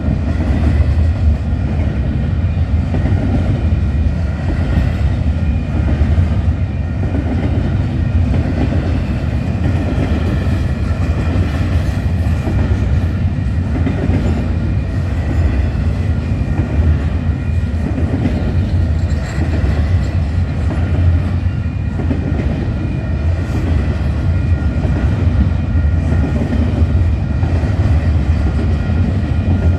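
Freight train's cars rolling past steadily at close range: a continuous low rumble of steel wheels on the rails, with some clickety-clack.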